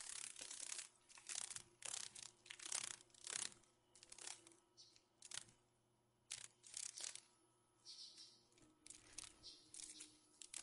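Faint rustling and crunching of dry autumn leaves in irregular bursts, busiest in the first few seconds and again later on.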